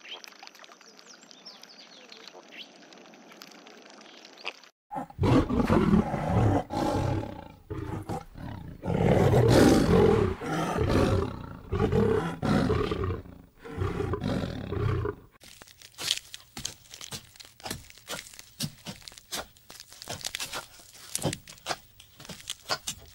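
Faint hiss at first, then about ten seconds of loud, deep animal roaring and growling in repeated pulses, then a run of quick clicks and crackles.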